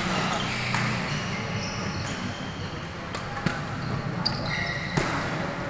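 Badminton rackets striking a shuttlecock in a doubles rally: several sharp cracks at irregular spacing, one to two seconds apart, over the background noise of a busy sports hall.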